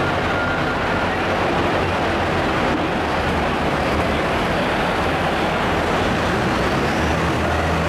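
Turbocharged diesel engine of a McCormick MTX200-based super stock pulling tractor running steadily at low revs, in a large echoing hall with a steady wash of background noise.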